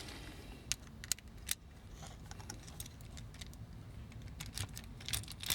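Scattered faint clicks and light taps of small plastic toy parts and a screwdriver being handled, with a small cluster of clicks near the end.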